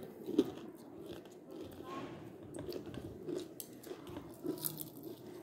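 A person biting into and chewing food, heard as scattered small clicks of eating.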